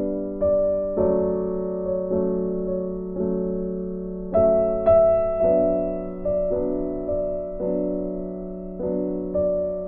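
Background music: slow, gentle piano, with notes and chords struck about once a second and left to ring and fade.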